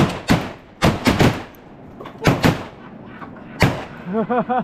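A volley of about seven shotgun shots from several hunters firing at ducks, spread irregularly over about four seconds. Near the end comes a quick string of short quacks.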